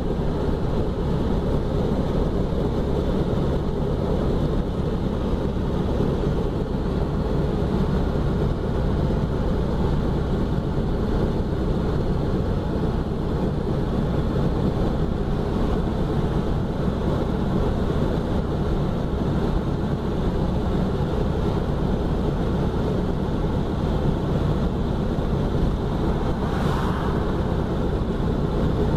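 1969 Volkswagen Beetle's air-cooled flat-four running steadily on the move, with road and wind noise on the microphone. A brief higher sound rises over it near the end.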